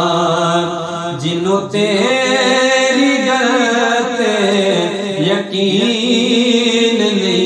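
A man singing a Punjabi naat unaccompanied, drawing out long, slowly wavering notes, with a short break for breath about a second and a half in.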